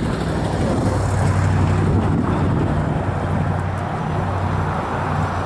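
A vehicle engine running with a steady low hum that firms up about a second in, under a steady rushing noise.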